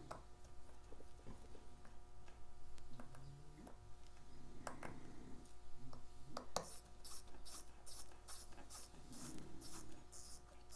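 Small clicks and taps of tweezers and tiny metal parts as a Seiko 6105 watch movement is worked on, with soft handling rustles. In the second half comes a quick run of short, sharp hissing ticks, about three a second.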